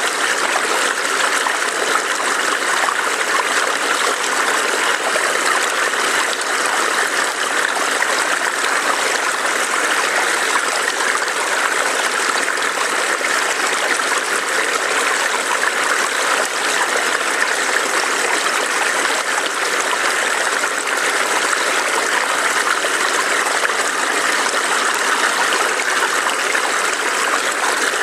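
Small stream burbling and trickling over rocks, a steady rushing of water.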